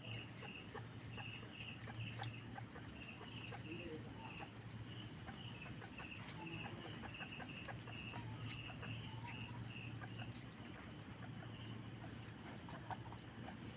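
Rabbits and a guinea pig chewing cucumber and pumpkin, heard as faint, irregular crunching clicks. A high chirp repeats about two or three times a second in the background over a steady low hum.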